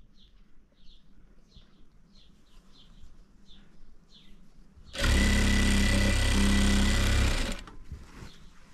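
A sewing machine runs in one steady burst of about two and a half seconds, starting abruptly about five seconds in and stopping abruptly. Before it, faint short high chirps repeat about twice a second.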